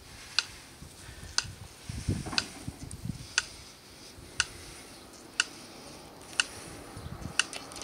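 Phone timer ticking sharply once a second, counting off the seconds of a timed isometric hold, with a few fainter irregular clicks in between.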